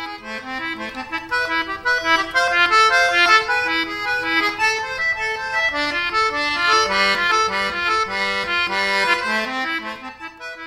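Instrumental title music: a brisk melody of short, evenly held notes over a lower moving line.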